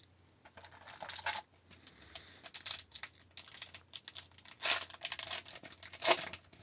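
Hockey card pack wrapper crinkling and being torn open, in a series of short crackly rustles.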